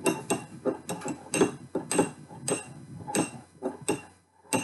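Metal spoon clinking against the inside of a small drinking glass while stirring food colouring into oil, about three quick clinks a second with a short pause near the end.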